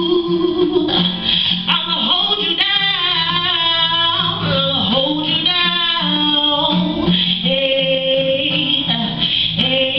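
A woman singing a soul song live into a microphone, accompanied by an acoustic guitar.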